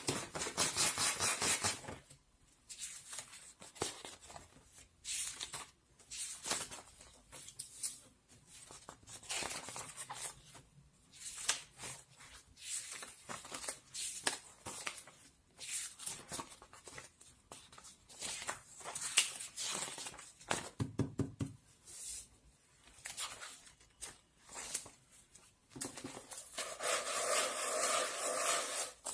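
Hands handling things at close range: a long run of short rustles and crinkles with light clicks and knocks, denser and more continuous near the end.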